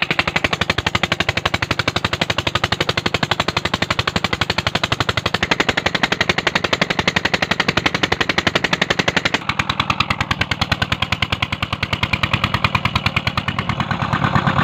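Single-cylinder diesel engine of a tubewell pump running with a fast, steady exhaust beat, and water gushing from the outlet pipe into the brick tank.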